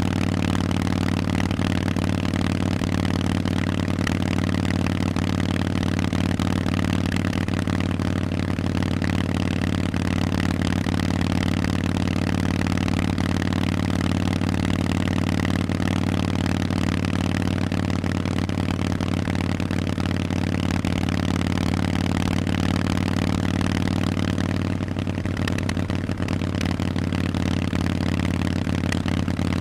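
Harley-Davidson Forty-Eight's air-cooled V-twin running through loud Vance & Hines aftermarket exhaust pipes, held at a steady, even engine speed, with a brief dip in loudness a few seconds before the end.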